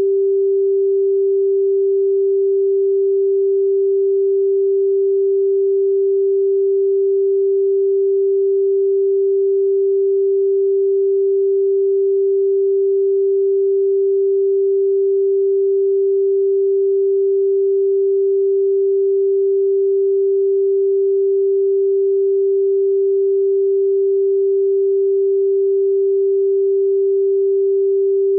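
A steady, unchanging pure sine-wave tone at 392 Hz, the pitch of G4 (the G above middle C).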